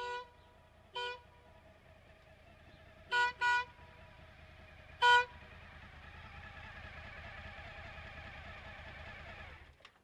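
Stebel Nautilus air horn on a Suzuki V-Strom DL1000 motorcycle giving five short blasts: one near the start, one about a second in, a quick double around three seconds, and the loudest around five seconds. After that the bike's V-twin engine runs, growing louder as the motorcycle comes close, and cuts off just before the end.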